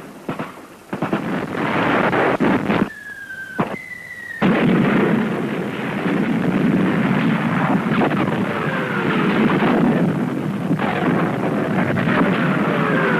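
Battle sounds of artillery and gunfire: sudden blasts in the first few seconds, a brief lull with two short whistles, then a dense, continuous din of firing from about four seconds in.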